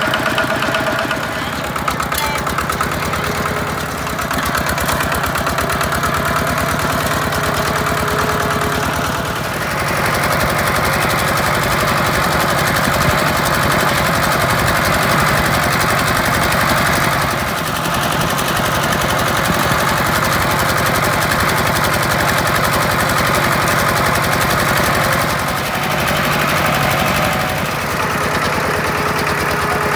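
Kubota walking tractor's single-cylinder diesel engine running steadily under way, a fast even chugging of firing knocks heard close up from the operator's position, its level shifting a few times as the throttle or load changes.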